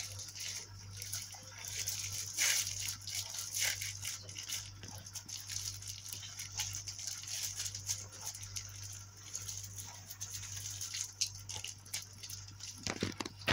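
Hands squeezing and kneading a moist bread-and-vegetable mixture in a glass bowl: soft, irregular squelching and crackling. A steady low hum runs underneath.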